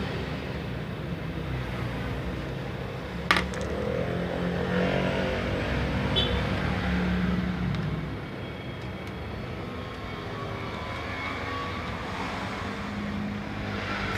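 Steady low engine-like rumble with one sharp click about three seconds in.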